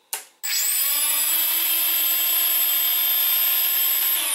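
The Walkera Furious 320 quadcopter's brushless motors, running without propellers, give a short buzz. They then spin up with a rising whine and hold a steady high whine at low idle throttle. At the very end the pitch starts to drop as the motors begin to wind down.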